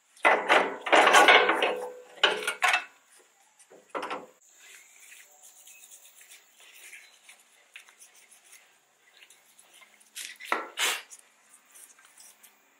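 Scraping and rubbing of metal suspension parts as a front coil-spring strut assembly is worked loose and handled. Several loud scrapes come in the first few seconds, then a quieter stretch, then two more scrapes near the end.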